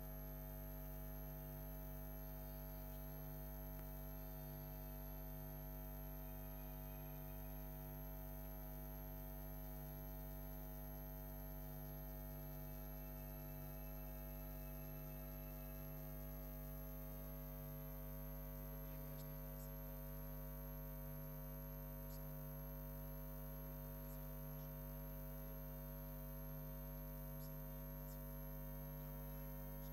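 Low, steady electrical mains hum with a faint high-pitched whine above it and a few faint ticks in the second half; no speech is heard.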